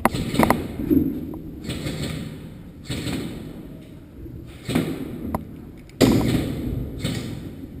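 Airsoft replica firing single shots: sharp cracks at uneven intervals, each trailing off in echo.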